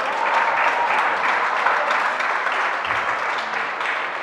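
Spectators applauding with many hands clapping. The applause swells at the start and slowly dies down.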